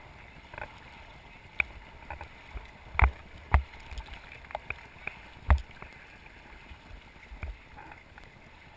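Paddle raft on a river: faint water noise with a few scattered thumps and splashes, the loudest about three seconds in.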